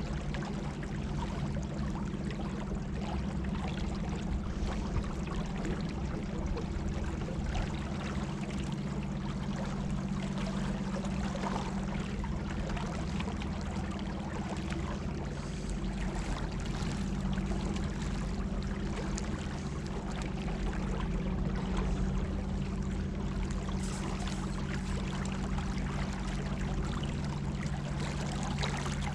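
Small rowboat's electric trolling motor running with a steady hum, while water rushes and splashes along the hull as the boat moves.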